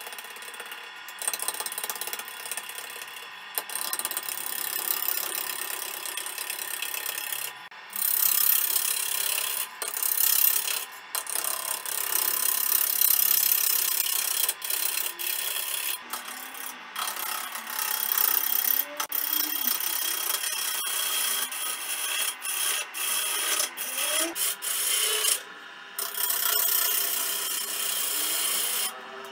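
Turning gouge cutting into a spinning algarrobo wood blank on a lathe: a rough, scraping hiss that drops out briefly several times as the tool is lifted off the wood, over the lathe's steady hum.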